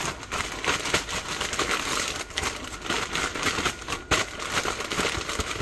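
Plastic zip-top bag crinkling and rustling as it is handled to coat chicken pieces in seasoning, with many short irregular crackles.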